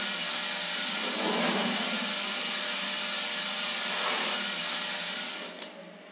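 Steady hiss of air blowing from a machine, with a low hum underneath, cutting off with a click about five and a half seconds in and then dying away.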